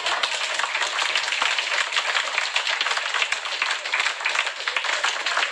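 Audience applauding, many people clapping at once in a dense, steady clatter.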